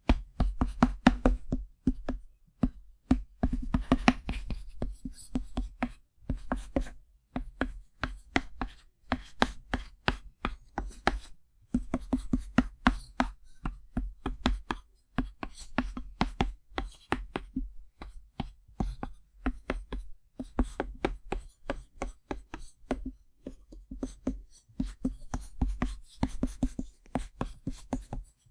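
Chalk writing on a chalkboard: quick runs of sharp taps and short scratchy strokes, several a second, broken by a few brief pauses.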